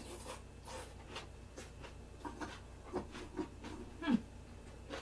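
A person chewing a mouthful of food: soft, irregular wet mouth clicks and smacks, with a brief falling low hum about four seconds in.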